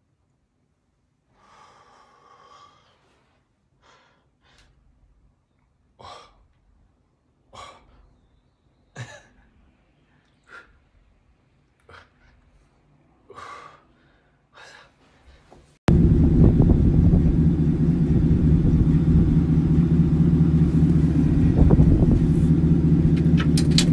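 Short, sharp exhaled breaths about every second and a half from a man doing push-ups. About sixteen seconds in, this cuts to the loud, steady low rumble of an idling car engine.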